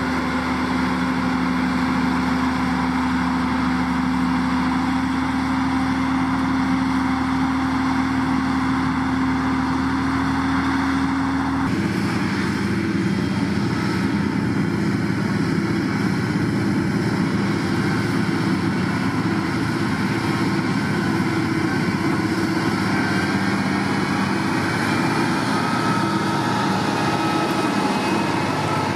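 Diesel engine of a SANY STG190C-8S motor grader running steadily as the grader works gravel with its moldboard. Its engine note changes abruptly about twelve seconds in.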